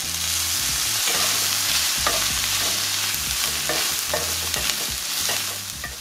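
Shredded chicken sizzling in a hot enameled cast-iron skillet just after lemon juice has gone in, with a steady hiss. It is stirred briskly with a spatula that scrapes the pan a few times.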